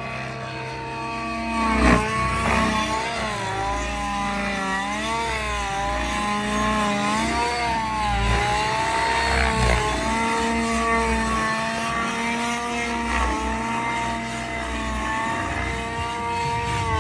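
Gas-powered RC helicopter engine with a Quietpower muffler running in flight, its pitch rising and falling as it manoeuvres. A thump stands out about two seconds in.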